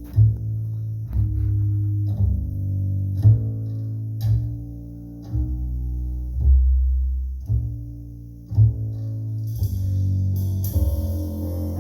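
Jazz recording played back over hi-fi loudspeakers: a plucked double bass line with a note about once a second, and other instruments brightening the sound near the end.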